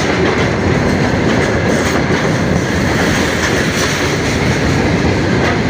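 Freight train rolling past on the rails, its wheels and wagons making a steady, unbroken noise.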